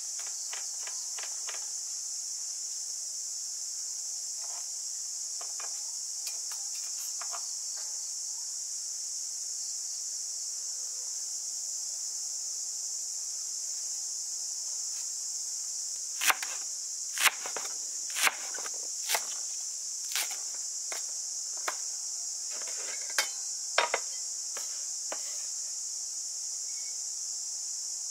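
Cleaver chopping green onions on a wooden cutting board: quick light taps at first, then a series of louder single knocks about a second apart in the second half. A steady high insect drone runs underneath.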